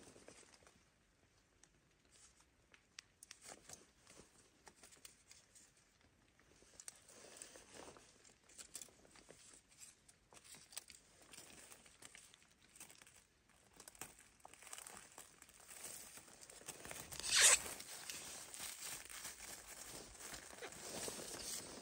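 Adhesive tape being pulled off its roll and torn while it is pressed onto plastic stretch film, with the film crinkling. One loud, short rip comes about three-quarters of the way through.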